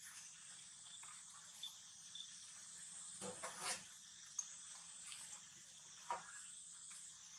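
Quiet ambience with a steady high hiss, a short rustle about three seconds in and a brief falling squeak about six seconds in.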